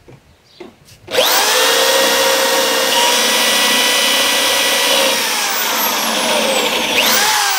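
Corded electric drill spinning up about a second in and boring a 3/4-inch hole into a pine board, its motor whine steady, easing down in pitch around five seconds in, then revving again near the end and winding down. The bit is driven in from one side only until its tip breaks through.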